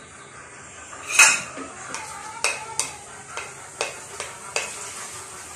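A metal spoon stirring ham and bacon in a cooking pan: one loud clank against the pan about a second in, then lighter clinks and scrapes every half second or so, over a faint frying sizzle.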